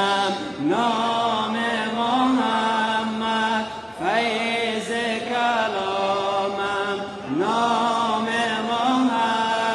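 A man's solo voice chanting a Persian nasheed in praise of the Prophet Muhammad, in about three long phrases, each opening with a rising slide into long held notes.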